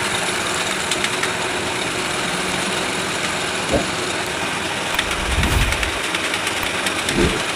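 Coil-winding machine running steadily, winding copper wire onto a ceiling-fan stator coil as its turn counter advances. A few low bumps come in the second half.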